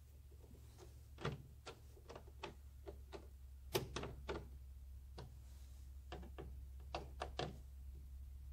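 Hand screwdriver working the licence-plate screws, with irregular small clicks and taps of the tool on the screws and the plastic camera bracket. A steady low hum sits underneath.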